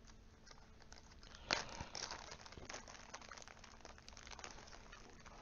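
Faint crinkling and rustling of crumpled brown kraft packing paper as hands dig through it, with a sharper rustle about a second and a half in.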